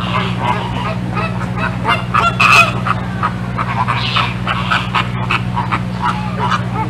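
A flock of birds calling, with many short overlapping calls that are loudest about two and a half seconds in, over a steady low hum.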